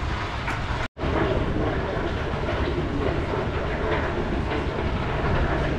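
Water-cooled stationary engine at a gold mining site running steadily. The sound cuts out for a split second about a second in, then carries on.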